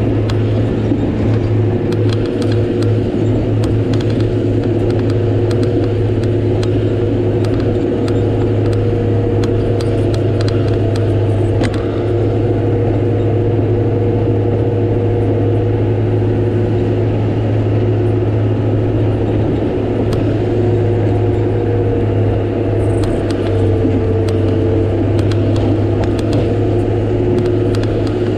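Komatsu GD655 motor grader's diesel engine running steadily while the machine grades a dirt road, with scattered light clicks and rattles over it.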